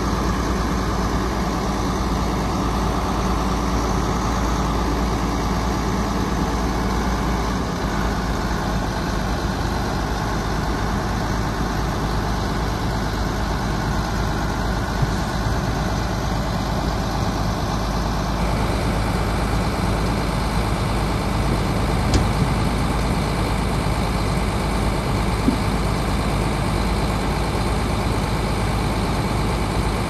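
Heavy earthmoving machinery's diesel engine running steadily, its tone changing slightly partway through, with a few short knocks.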